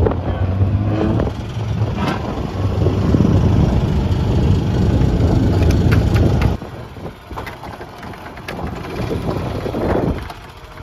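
Vehicle engine rumbling steadily with wind buffeting the microphone, heard from an open cart on the move; the rumble drops off suddenly about six and a half seconds in, leaving a quieter hum.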